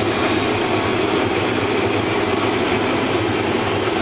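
Combine harvester running steadily in the wheat, its engine and threshing machinery making a constant mechanical drone.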